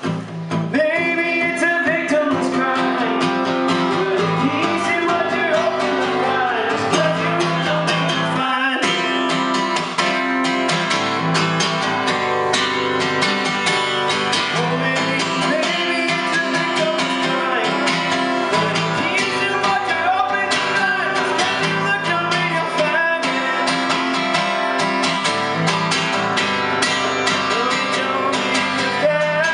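Acoustic guitar strummed steadily, with a man singing over it into a microphone: live singer-songwriter music.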